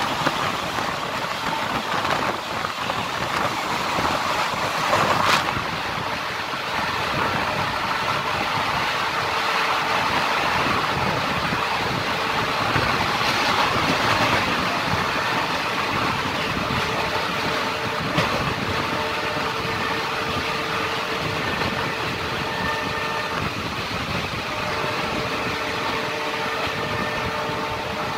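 Passenger train running, heard from an open coach window: a steady rush of wheels on rail and passing air, with one sharp click about five seconds in and faint steady tones over the noise in the second half.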